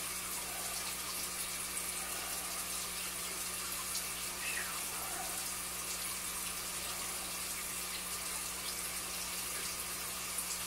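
Steady running and trickling of aquarium water, an even hiss flecked with tiny ticks, over a constant low hum.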